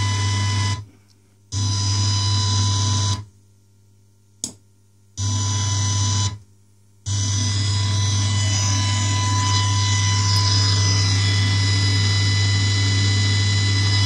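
Steady mains hum with hiss and faint whining tones from a vintage Sansui hi-fi amplifier and speakers. It cuts out abruptly three times as front-panel buttons are pressed, with a single click during the second gap, then comes back and runs steadily.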